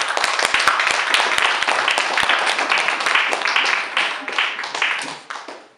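Small audience applauding, a dense run of hand clapping that fades away near the end.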